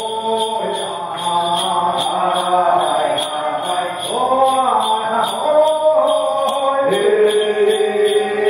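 A group of Amis dancers chanting a ceremonial song, their voices rising and falling in long phrases with new phrases starting about four and seven seconds in. Bells jingle in a steady beat, about two or three times a second, under the singing.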